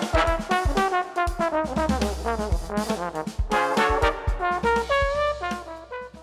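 Trombone playing a fast run of short, detached notes over a low bass line in an instrumental music track, settling into a few longer held notes near the end.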